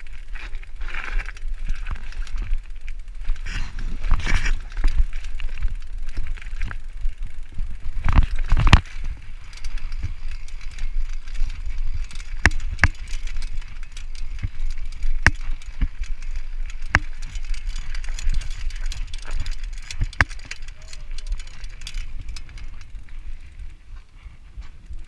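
Bicycle rolling over a rough trail, its frame and parts rattling, with sharp clicks and knocks scattered through and a steady low rumble underneath.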